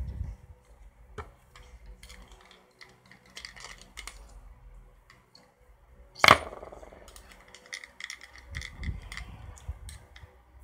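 Small hard parts being handled while a plastic gadget is taken apart, scattered light clicks and clinks, with one sharp loud knock about six seconds in.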